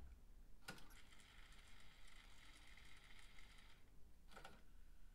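Kenwood KRC-856RL car cassette deck fast-forwarding a tape: a click as the mechanism engages, a faint steady whir of the tape winding for about three seconds, then another click as the winding stops.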